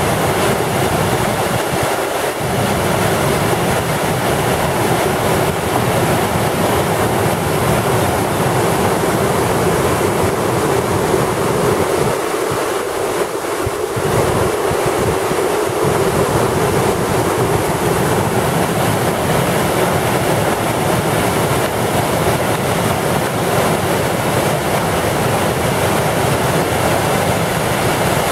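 Floodwater of a swollen river rushing and churning over rapids, a loud, steady roar of whitewater.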